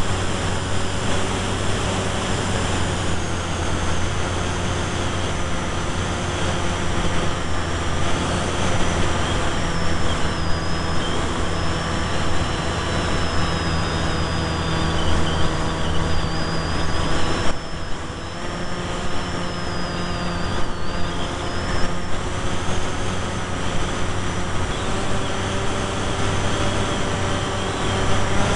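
Electric brushless motor and propeller of a small foam delta-wing RC plane droning steadily, heard through the onboard camera's microphone with wind rush over the airframe. A high whine wavers in pitch, and about two-thirds of the way through the drone dips briefly and comes back at a slightly different pitch, as with a throttle change.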